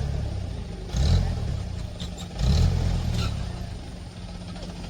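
Off-road vehicle's engine running under load, surging in two revs before easing off, with a few scattered knocks and rattles.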